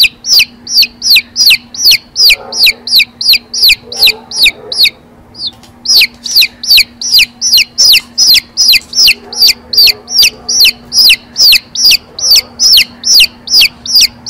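Baby chick peeping: a fast, even run of loud, high, falling peeps, about three a second, with a short break about five seconds in. It starts and stops abruptly.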